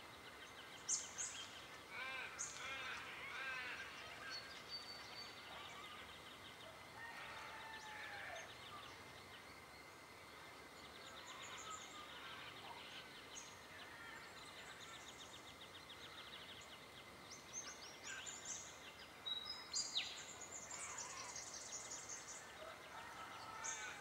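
Small birds calling faintly, with rapid high trills, short high chips, and bursts of chattering arched notes near the start and again near the end.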